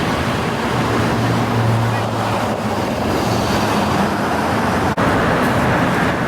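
Steady road traffic noise, with a vehicle engine hum that swells for a couple of seconds about a second in.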